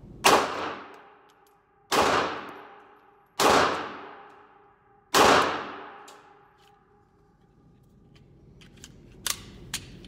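Glock 42 .380 ACP pistol firing four shots about a second and a half apart, each crack followed by a long echoing decay in an indoor range. Near the end come two much fainter sharp clicks.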